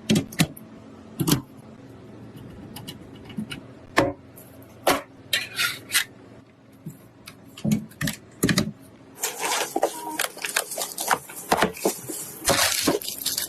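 Computer hardware being handled during a PC build: scattered clicks and knocks of hard parts, then about nine seconds in a dense stretch of rustling and clatter.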